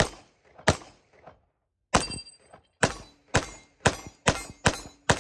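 FN FNX-45 Tactical pistol firing .45 ACP hollow-point rounds in a magazine dump, about nine sharp shots with a short echo after each. The shots are spaced out at first, then come at roughly two a second.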